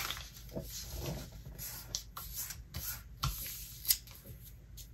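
A sheet of paper being folded by hand into a paper airplane: soft rustles and a handful of short, crisp crinkles and scrapes as fingers roll a flap over and press the crease flat.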